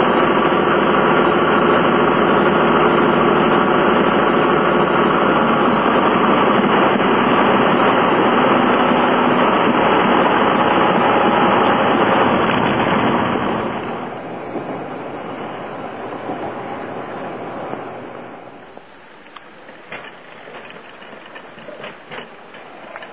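Steady drone of a light aircraft's piston engine and propeller heard from the cabin. It falls off sharply about 13 seconds in and again about 18 seconds in, leaving a quieter hum with a few faint clicks.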